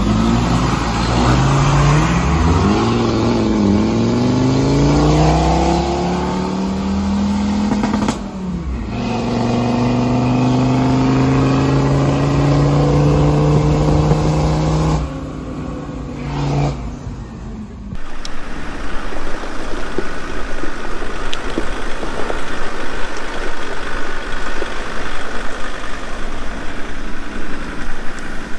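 An off-road vehicle's engine pulling through the gears, its pitch climbing steadily and dropping back at each shift. After a cut, loud rough driving noise with many small knocks and rattles from a rutted dirt track.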